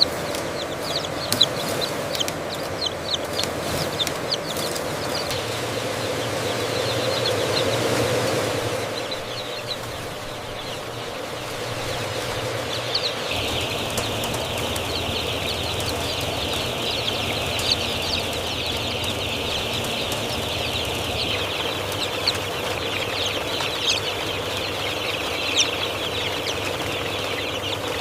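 Many young chicks peeping, a dense high chatter that thickens about halfway through, over a steady low hum.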